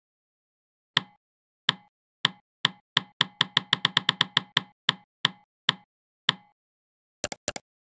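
A run of sharp, dry knocks like wood-block hits in dead silence. They start about a second apart, speed up to about six a second midway, then slow down again. Near the end come a few very quick clicks.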